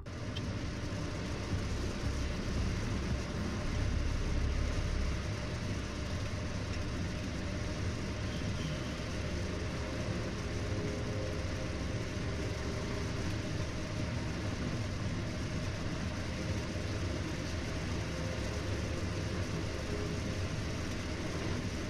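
Steady road and engine noise inside a Ford Focus cabin cruising at highway speed.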